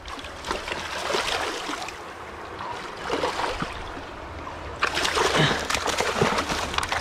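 Hooked pink salmon thrashing and splashing at the surface of shallow river water beside rocks, with a landing net dipping in the water. The splashing grows louder about five seconds in.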